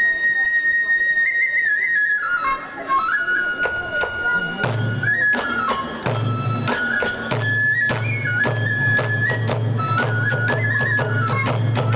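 Kagura hayashi ensemble: a transverse bamboo flute holds a long high note, then wavers down through a melody. About four and a half seconds in, drums and clashing hand cymbals join with a steady beat under the flute.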